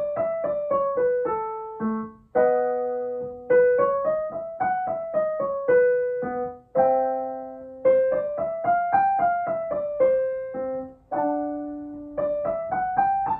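Piano playing five-note vocal warm-up scales: quick notes stepping up and back down, each run closed by a held chord, about three runs in all.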